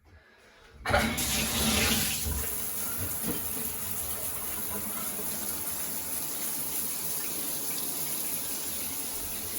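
Shower water turned on about a second in: an old shower head spraying, a brief louder gush and then a steady rush of falling water. It is the head the owner wants to replace for more pressure.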